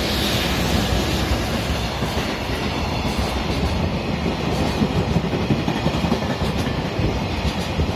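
Container freight train hauled by an EF210 electric locomotive passing close by at speed: a steady rumble of the locomotive and then its container flat wagons rolling past, with short knocks of wheels over the rail joints from about five seconds in.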